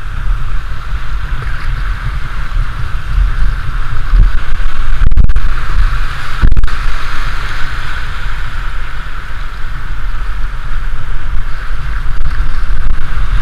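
Whitewater of a shallow river rapid rushing around an open canoe as it runs through, under heavy wind rumble on the microphone. Louder from about four seconds in, with two short dips soon after.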